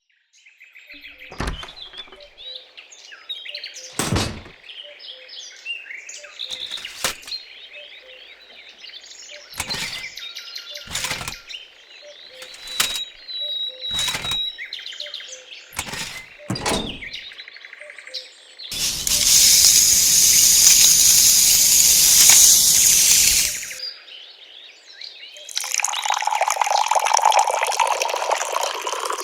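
Birds chirping, with a series of sharp knocks and taps from handwork. About two-thirds of the way in comes a loud, steady rushing hiss that lasts about five seconds and stops suddenly. Near the end a second, lower rushing sound starts.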